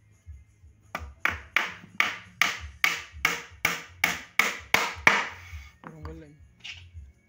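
Hammer driving a nail into a wooden chair seat: about a dozen evenly spaced blows, roughly two and a half a second, that stop about five seconds in.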